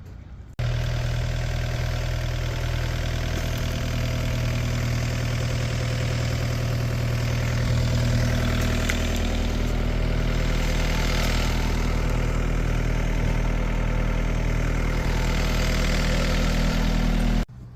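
Excavator's diesel engine running steadily as it works. It cuts in abruptly and cuts off just as abruptly near the end, and its note shifts slightly about halfway through.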